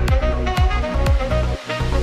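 Electronic dance music with a steady kick-drum beat about twice a second over held synth tones; the bass briefly drops out near the end.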